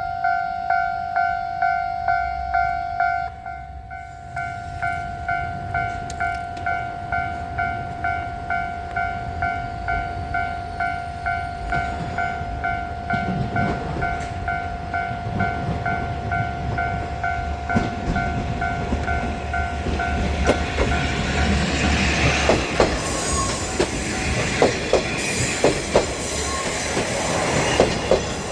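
A Japanese level-crossing warning bell dings steadily about twice a second. A JR KiHa 47 diesel railcar then passes over the crossing, and its wheels clack over the rail joints, loudest in the last third.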